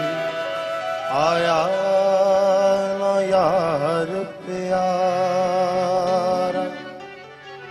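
A male singer sings a slow South Asian vocal piece with harmonium accompaniment, holding long notes and adding quick wavering ornaments to several of them. The music falls away briefly near the end between phrases.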